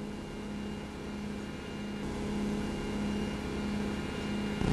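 A steady low hum with a fainter high tone above it, slowly growing louder.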